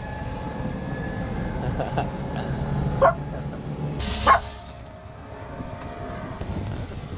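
A dog barks twice, about three and four seconds in, the second bark louder, over the steady low hum of a boat's engine running.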